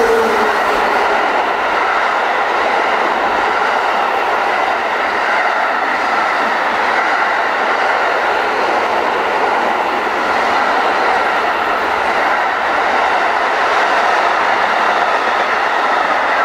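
Freight train of container flat wagons loaded with tank containers passing close by, its wheels running on the rails in a steady, loud noise that holds level throughout.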